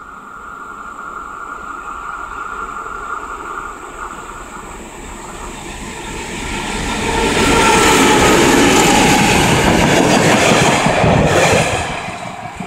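ČD class 749 diesel locomotive hauling a passenger train past at close range. It is heard approaching and growing steadily louder, is loudest for about four seconds in the second half as the locomotive and coaches go by with their wheels running on the rails, then falls away near the end as the last coach leaves.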